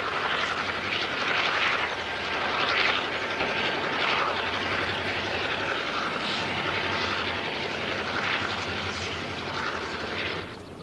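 Rotary snowplow running, its spinning blade wheel chewing through deep snow and throwing it aside: a steady rushing mechanical noise that swells now and then.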